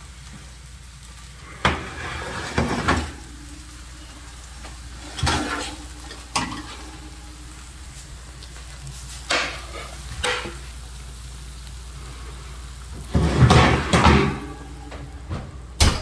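A hot metal sheet pan of oven-roasted green beans being slid off the oven rack and set down on a stone counter: a series of metal knocks and scrapes, the loudest clatter about 13 seconds in, with a light sizzle in between.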